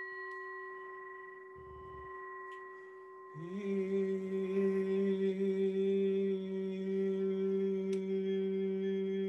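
A hand-held singing bowl, struck just before, rings with a steady tone that slowly fades. About three and a half seconds in, a man's voice joins, humming a steady low note an octave below the bowl, and the hum and the bowl's tone sound together to the end.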